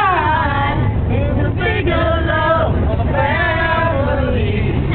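A mixed group of men and women singing a TV show theme song together, with sung notes held and gliding, over the steady low rumble of the bus.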